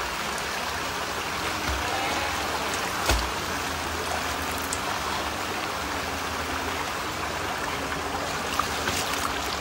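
Steady rush of a stream's running water, with one sharp knock about three seconds in.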